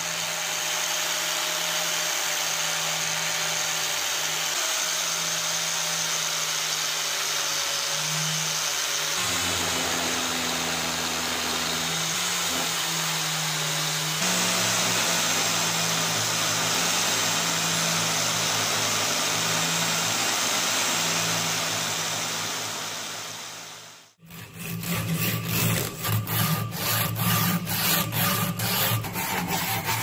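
Bench grinder running steadily while steel is ground against its pink abrasive wheel. About three-quarters of the way through the sound cuts off and quick, rhythmic back-and-forth rubbing starts: a strip of abrasive drawn to and fro through the slot in the steel.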